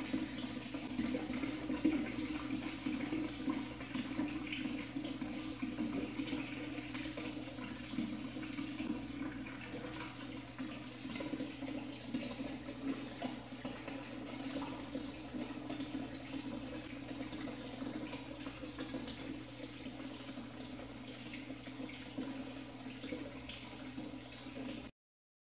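Water pouring steadily into a deep root watering mesh tube, a continuous rush that softens a little over time and cuts off suddenly near the end.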